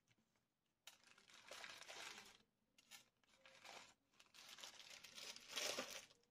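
Faint rustling and crinkling of craft supplies being handled on a desk, in several short bouts, the strongest near the end.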